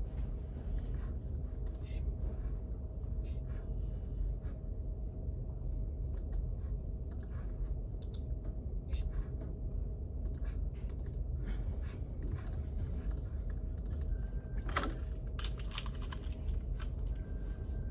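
Irregular light clicks of typing on a keyboard, over a steady low room rumble with a faint hum.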